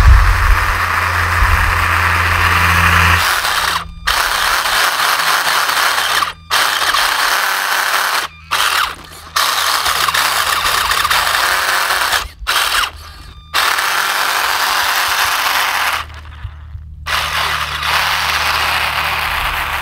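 Electric motor and gear train of a toy-grade RC race buggy whining as it is driven over gravel, with the tyres crunching on the stones. The sound cuts out abruptly several times and then resumes.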